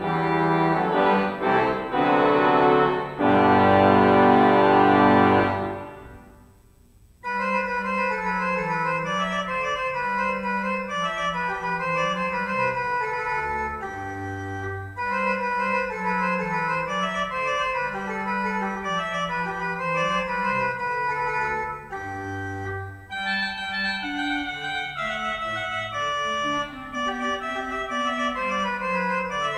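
Church organ playing: loud, full sustained chords that break off about six seconds in and die away in the room's reverberation. After a short pause a quieter, lighter passage follows, with moving bass notes under it.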